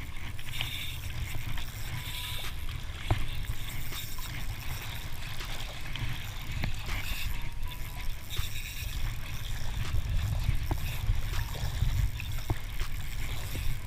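Spinning reel being cranked against a hooked fish, its line roller making a scratching sound, with scattered sharp clicks. Water laps under a steady low rumble.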